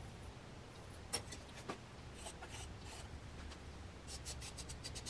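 Faint handling sounds from hand-building with soft clay pieces on a work surface: two light knocks a little over a second in, then scattered light ticks and rubbing, with a quick run of ticks near the end.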